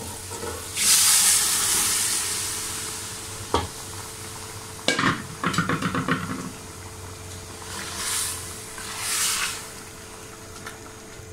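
Boiled red kidney beans and their cooking liquid tipped into hot oil-fried tomato masala in a metal kadai set off a loud sizzle about a second in, which fades over a few seconds. Then a spatula knocks and scrapes against the pan as the beans are stirred in, with two shorter sizzles near the end.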